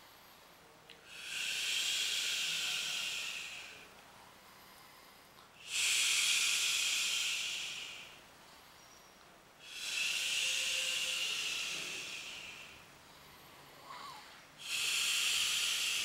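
Long, forceful hissing exhalations of breath, four of them about four and a half seconds apart, each starting suddenly and fading away over about three seconds, paced with the hand pressure of an abdominal massage.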